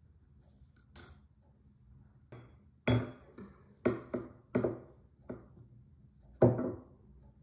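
A handful of sharp knocks and clinks, each ringing briefly, as a roller and small tools are handled on a wooden tabletop while clay is rolled flat. The loudest comes near the end.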